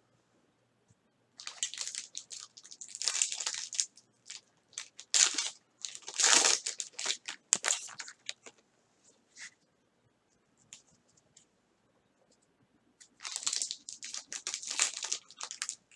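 Foil trading-card pack wrappers crinkling and tearing as packs are opened by hand. It comes in three spells of crackly rustling, about a second and a half in, around six seconds in and from about thirteen seconds in, with a few quiet seconds between the last two.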